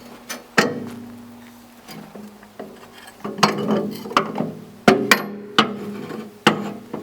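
Steel parts of a pallet buster tool knocking and clanking together as it is assembled: a few sharp metal knocks, each followed by a short ringing of the steel tubing.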